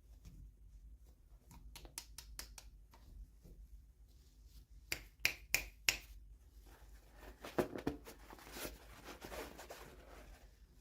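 Hands handling toy packaging at close range: a run of small sharp clicks, the loudest about five to six seconds in, then a few seconds of rustling and crinkling.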